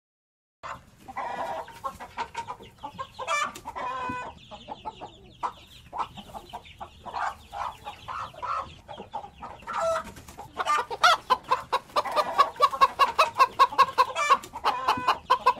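Hens clucking, a run of short calls that turns into fast, louder clucking over the last five seconds.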